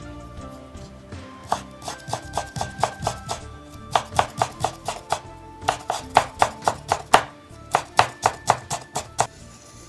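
Kitchen knife chopping yuzu peel into fine strips on a wooden cutting board: a quick run of sharp knocks of the blade on the board, about three to four a second, starting about a second and a half in, with a brief pause near the end.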